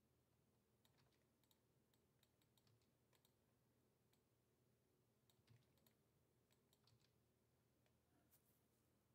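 Faint, scattered clicks of a computer keyboard and mouse as values are typed and pasted into a software dialog, over near silence.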